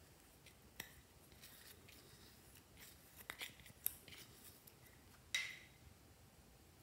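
Plastic spatula scraping pressed eyeshadow out of its pan: faint, scattered scratchy scrapes and clicks, with one sharper click about five and a half seconds in.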